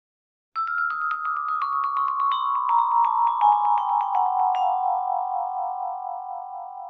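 Vibraphone played in a quick descending run of mallet strikes, about five a second, starting about half a second in. The notes ring on together after the run ends, around four and a half seconds in, and slowly fade.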